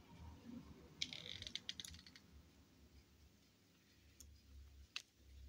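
Near silence, broken by a quick run of small clicks and rustles about a second in and one sharp click near the end.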